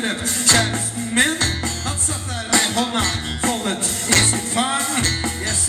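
Live rock band playing amplified music: drum kit, electric guitar and keyboards, with a steady beat of about two drum strokes a second.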